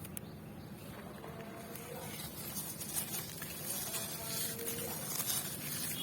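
Dry charcoal blocks crumbling, a gritty crunching hiss that grows louder about two seconds in, with faint short chirps in the background.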